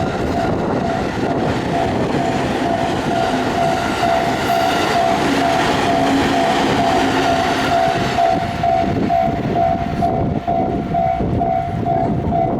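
Japanese level-crossing warning bell ringing steadily at about two dings a second while a train passes close by, its wheels clattering over the rails. The bell stops near the end.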